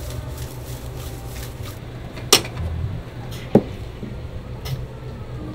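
Two sharp knocks, a little over a second apart, over a steady low hum.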